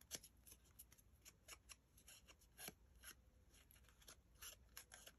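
Faint, quick scratchy strokes and ticks on paper, irregular and a few a second, as a small paper cut-out is worked by hand.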